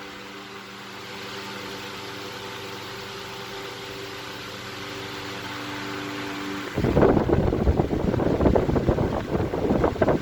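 1930s GE 16-inch table fan with an aluminum blade, running on high: a steady motor hum with several even tones over a soft air hiss. About two-thirds of the way in, a loud, rough wind buffeting takes over as the oscillating fan swings its airflow onto the microphone.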